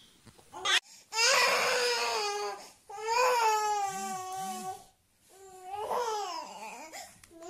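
A toddler crying: three long wailing cries, each one and a half to two seconds long, with the pitch sliding up and down.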